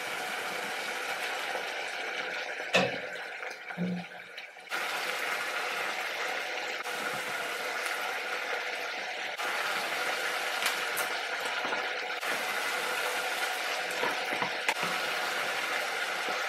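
Pasta boiling in a pan on a gas stove: a steady watery hiss, with a couple of knocks about three and four seconds in.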